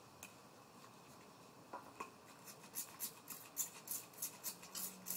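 Hand-held trigger spray bottle squirting ammonia onto a copper sheet to bring up a blue patina: about a dozen quick hissing sprays, roughly three a second, starting about two seconds in after a few faint handling clicks.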